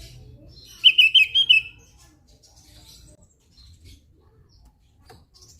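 Javan grey-throated white-eye (opior jawa) calling: a quick run of about five loud high notes about a second in, followed by faint scattered chirps.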